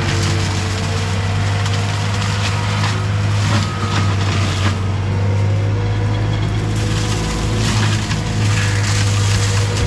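Gyrotrac forestry mulcher head on a CAT 259D3 track loader, its rotor grinding through brush and wood with continuous crushing and splintering over the steady hum of the machine's diesel engine under load.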